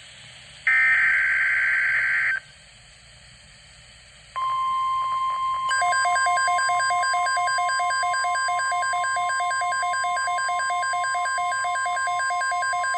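Emergency Alert System SAME header, a loud digital warble lasting about a second and a half. After a short pause comes the steady 1050 Hz NOAA Weather Radio warning tone, and about a second later a rapidly pulsing two-pitch beep joins it until both cut off together.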